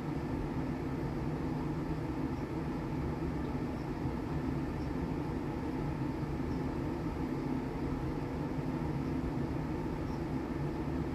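Steady low hum and hiss that holds level without a break.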